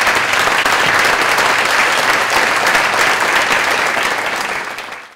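An audience applauding steadily, fading out near the end, where the sound cuts off.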